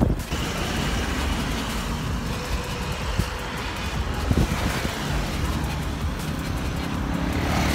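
Road traffic noise from passing motor vehicles, with a steady low rumble, a few light knocks, and an engine growing louder near the end.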